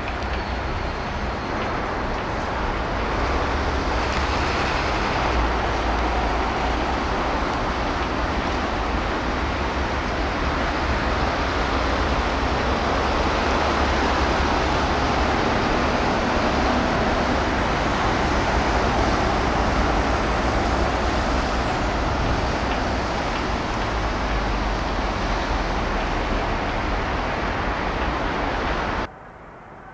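Steady outdoor noise of passing road traffic, a constant rumble and hiss, cutting off abruptly about a second before the end.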